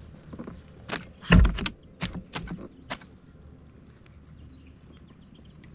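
Five or so sharp knocks and clatters from handling a fish and gear in a kayak, the loudest about a second and a half in, after which only a faint steady background remains.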